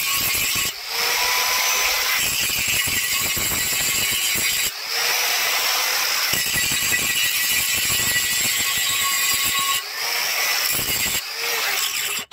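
Handheld angle grinder grinding the wear ridge off the outer lip of a truck's rear brake drum, running steadily on the metal and easing off briefly a few times. It is cutting the lip down at an angle so the drum will slide off past the shoes without catching. It stops at the very end.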